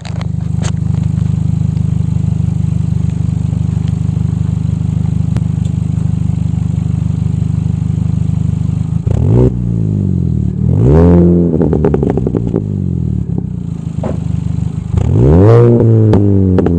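Exhaust of a Mini Cooper S R53's supercharged 1.6-litre four-cylinder through a Malian cat-back exhaust. It idles steadily for about nine seconds, then gets a short blip, then two revs that climb and fall back, about eleven and fifteen seconds in, with pops and crackles on the overrun.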